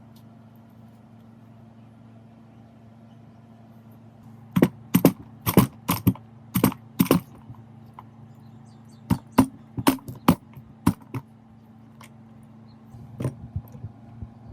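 A run of sharp knocks, like strikes on a workpiece, coming in two quick groups of about half a dozen each, starting about four and a half and nine seconds in, with a few lighter taps near the end, over a steady low hum.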